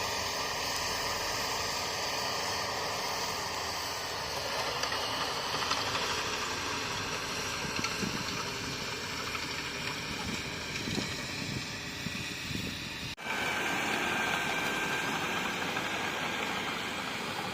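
Bulldozer's diesel engine running steadily under work, with an abrupt change about 13 seconds in to a different stretch carrying a steady high whine.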